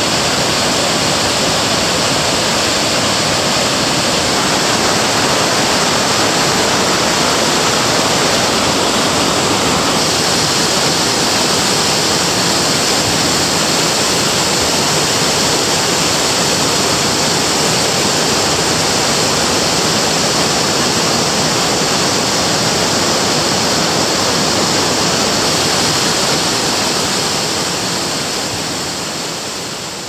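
Water pouring over the concrete spillway of a steel slit sabo dam and crashing into the river pool below: a loud, steady rush of falling water, fading out near the end.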